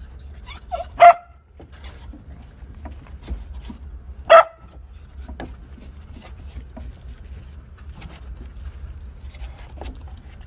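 Young dog barking sharply twice, about three seconds apart, the first bark led in by a short whine. Light scratching and clicking in between, over a low rumble.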